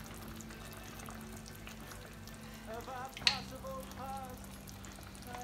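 Pan of chickpea, spinach and cod stew simmering on the hob, a faint steady bubbling over a low hum, with one sharp click about three seconds in.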